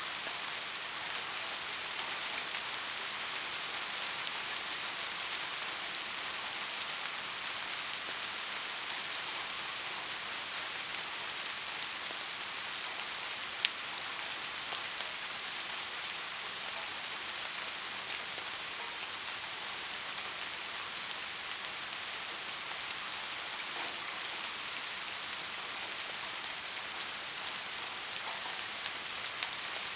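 Steady rain falling, with one sharp drop-like tick about halfway through.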